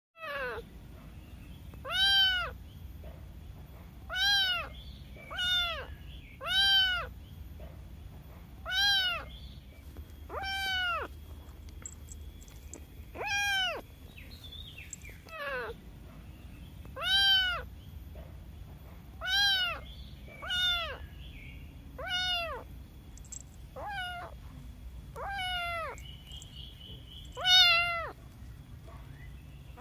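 A young kitten meowing over and over, about fifteen meows one to two seconds apart. Each meow rises and then falls in pitch, and the loudest comes near the end.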